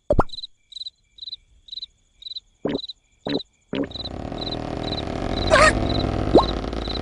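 Cartoon night sound effects: cricket chirps repeating about twice a second, with a few short sounds in between, then from about halfway a loud, rough snore that runs on, with a short rising whistle near the end.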